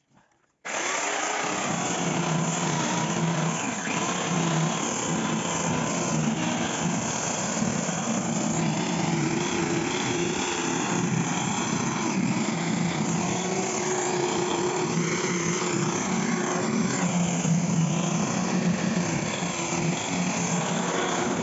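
Electric angle grinder fitted with a sanding disc, running steadily as it sands the face of a wooden door: a constant motor hum with the hiss of abrasive on wood. It starts suddenly about half a second in.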